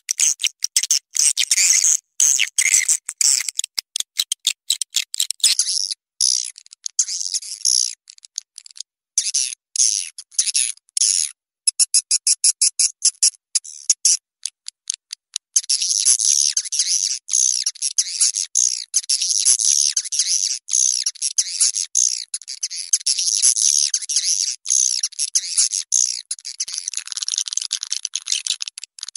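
Swiftlet call track, the kind played to lure swiftlets into a nesting house: rapid high chirping and twittering of swiftlets, mixed into a looped recording. The first half comes in choppy stretches with short gaps, and from about halfway it runs into a dense, unbroken twitter.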